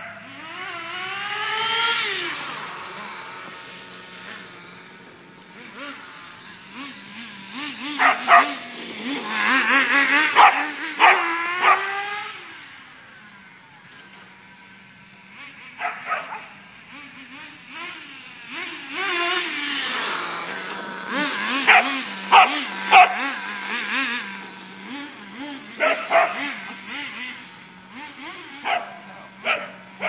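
Small two-stroke nitro glow engine (HPI T-15) of a remote-control car, its pitch rising and falling as it speeds up and slows down, with a sharp rise at the start. An English springer spaniel barks in short sharp barks, many times throughout.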